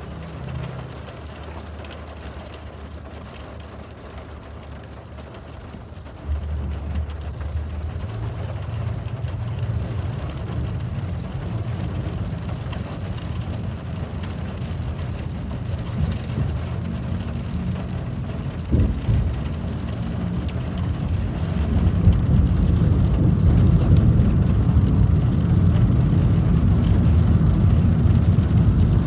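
Rain falling steadily over a deep rumble, which steps up about six seconds in and grows louder toward the end, with a single sharp tap a little past the middle.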